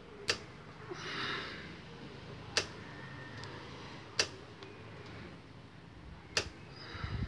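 Four sharp clicks a couple of seconds apart from a Hero Honda motorcycle's plastic throttle housing as the accelerator cable end is worked inside it by hand, with a soft rustle about a second in.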